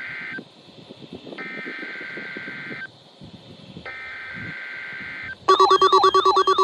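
NOAA Weather Radio SAME alert header: buzzy two-tone digital data bursts sent three times, each about a second and a half long, with radio hiss between them. The first burst is already ending at the start. About five and a half seconds in, a much louder warbling electronic alert tone starts.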